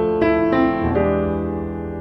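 Background piano music: a few notes struck in the first second, then ringing and slowly fading.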